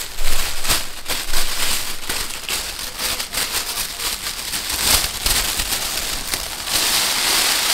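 Red tissue paper crinkling and rustling as it is unfolded and tucked into a gift bag: a continuous crackly rustle with sharp crackles, densest near the end.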